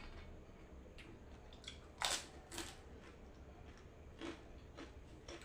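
Close-up eating sounds: two sharp crunches about two seconds in, the first the loudest, then a few softer crunches while chewing.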